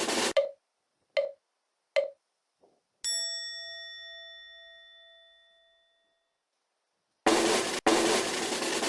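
Edited sound effects: a broad rush like a drum roll cuts off sharply, two short hits follow about a second apart, then a single bell ding rings out and fades over about three seconds. After a silence, another loud rush starts near the end.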